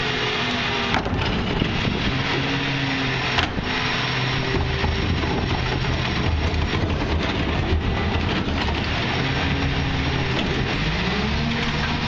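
Rear-load garbage truck's packing cycle: the diesel engine runs under hydraulic load while the packer panel grinds and crushes recyclables in the hopper. There are a couple of sharp metal knocks early on from the cart and tipper, and the engine pitch rises near the end as the truck revs up.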